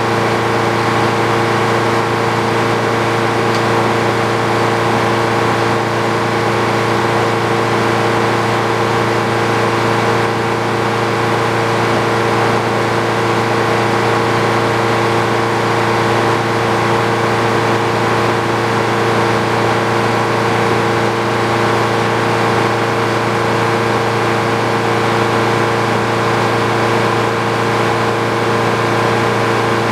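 Frick OO circular sawmill running at a steady speed, its power unit and spinning blade making a loud, unchanging hum with several steady tones.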